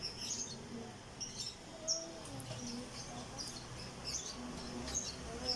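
Small birds chirping, short high chirps repeating every half second or so.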